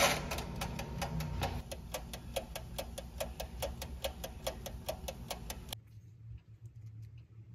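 Rapid, even clicking, about five clicks a second, that stops abruptly near the end, leaving only a few faint scattered clicks.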